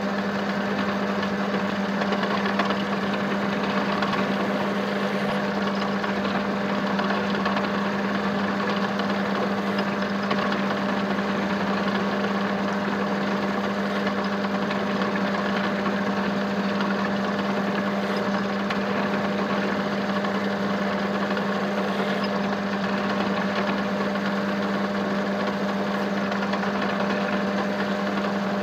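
Metal lathe running steadily with a constant hum, turning a cast aluminium-bronze workpiece while the cutting tool takes off chips.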